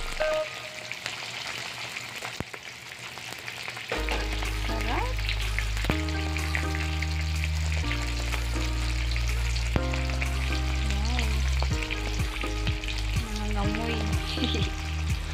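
Smoked fish (tinapa) frying in hot oil in a wok: a steady sizzle, with the odd knock of a metal spatula against the pan. From about four seconds in, background music with long held bass notes plays over the sizzle.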